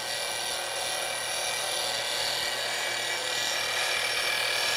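Bench grinder, its wheel turning at about 3,000 RPM, grinding a bevel onto the steel edge of a double-bit axe: a steady grinding hiss with high ringing tones over the motor's low hum, growing a little louder near the end.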